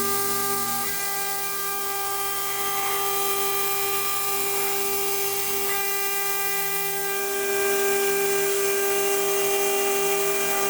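CNC milling machine running a cut: a steady machine whine over a hiss, with its lower motor tones stepping abruptly to new pitches about a second in and again near six seconds.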